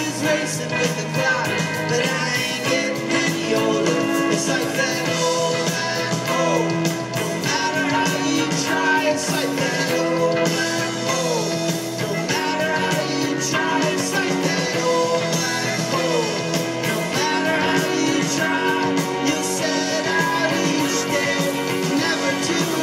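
Rock band playing live: electric guitars, bass and drums, with a lead vocal sung over them.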